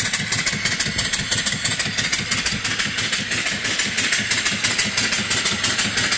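Homemade single-cylinder vertical steam engine running under steam with rapid, even exhaust chuffs over a steady steam hiss, belt-driving a 12-volt alternator. It is running on low boiler pressure of about 25 to 30 pounds.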